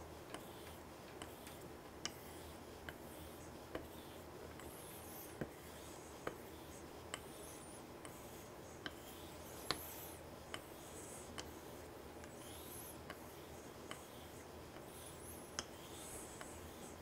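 Straight razor honed in laps on a soft Japanese natural whetstone under a fine, half-dried slurry: a faint, steady scratchy rubbing, with light ticks a little more than once a second as the blade turns over on its spine at each stroke.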